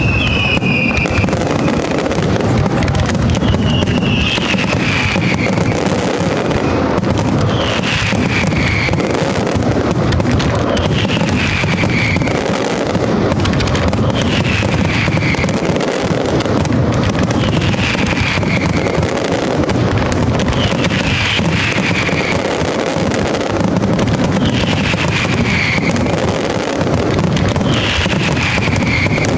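A professional fireworks display in full barrage: a dense, unbroken run of shell bursts, bangs and crackle with no pause. Music plays along with it, a falling high tone recurring about every three and a half seconds.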